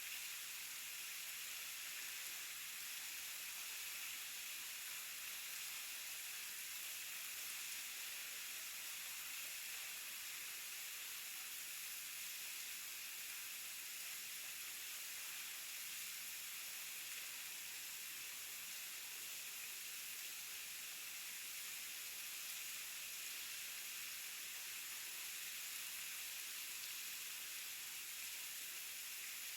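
Waterfall: falling water making a steady, unbroken hiss, mostly high in pitch.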